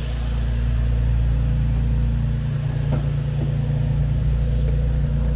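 Nissan 350Z's 3.5-litre VQ V6 idling steadily and smoothly, running with a newly fitted camshaft position sensor and no warning lights.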